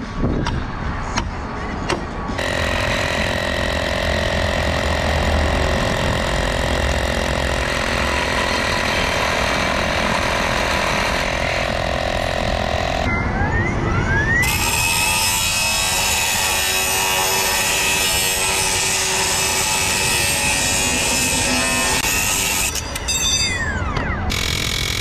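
A power tool's motor whines as it spins up, runs steadily with a high hiss, and winds down again near the end, with abrupt jumps in the sound along the way.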